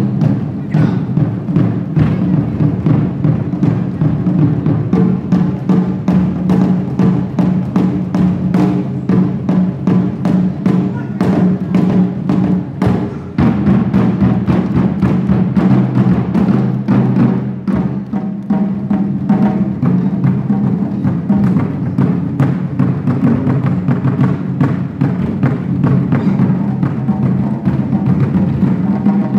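Drum ensemble of rope-tensioned barrel drums and a large barrel drum struck with sticks in a fast, dense, unbroken rhythm, with a steady low ring under the strokes.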